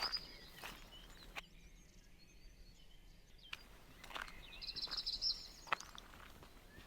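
Small birds calling outdoors: quick high-pitched trilled chirps near the start and again in a burst around the middle, with scattered sharp clicks in between.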